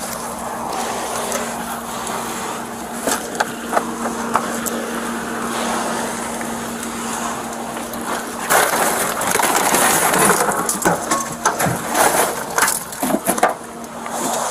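Close rustling, scraping and cracking of dry brush and old wooden fence boards as a person climbs through them, picked up on a body-worn camera along with clothing rubbing, and with scattered clicks. The rustling grows louder about eight and a half seconds in.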